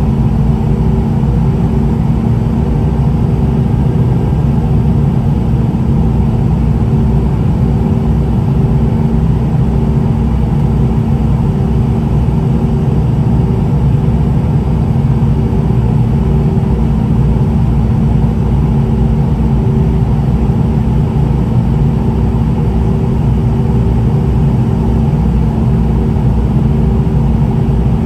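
Steady, loud cabin noise inside a Boeing 717-200 airliner descending on approach: a low rumble of airflow and the rear-mounted Rolls-Royce BR715 turbofans, with a steady low hum running through it.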